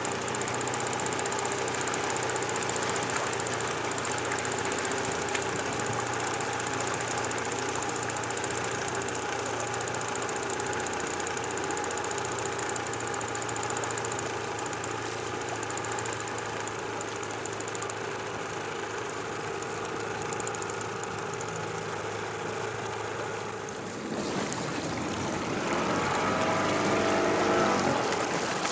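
A small boat's engine running steadily with a low, even hum. About 24 seconds in the hum drops away, giving way to louder rushing water with a higher whine.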